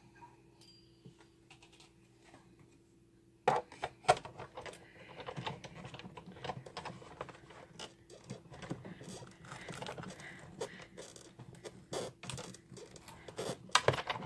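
Big Shot hand-cranked die-cutting machine being worked, with metal Thinlits dies and cutting plates in it: a few faint ticks, then from about three and a half seconds in a busy run of irregular clicks and knocks.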